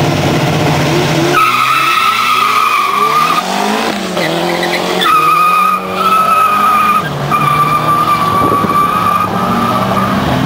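Two drag-racing cars idling at the line, then launching about a second and a half in: the engines rev hard and climb in pitch again and again as they shift through the gears and pull away. A steady high-pitched squeal runs over the engines for several seconds at a time.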